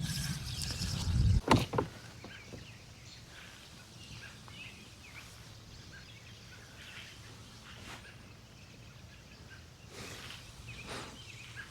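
Quiet outdoor ambience aboard a kayak, with a few knocks and handling noises in the first couple of seconds and again near the end.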